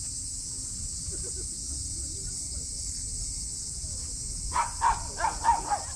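A dog barking in a quick run of about six short barks near the end, over a steady high drone of insects.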